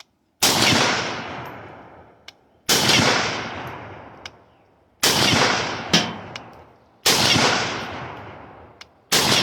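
M1 Garand rifle chambered in .308 firing five semi-automatic shots, about two seconds apart, each followed by a long fading echo, with a short sharp click between shots. The steady string of shots is a function-fire test after a bent operating rod was replaced, and the rifle is cycling each round.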